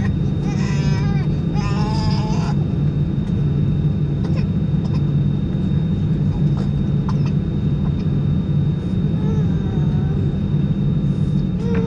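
Airbus A320's CFM56-5B engines at idle heard inside the cabin: a steady low drone with a thin, constant high whine over it. Voices speak briefly near the start and again about nine seconds in.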